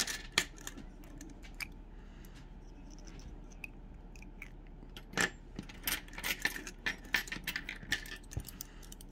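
Small hard tools handled on a tabletop: a few sharp clicks near the start, then a quick run of light clicks and clinks from about five seconds in as metal crochet hooks are moved about.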